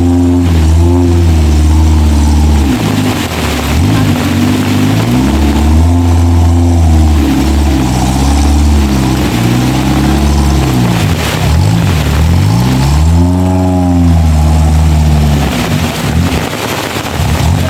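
Off-road 4x4's engine revving up and down repeatedly under load, its pitch rising and falling several times, over a steady rushing noise.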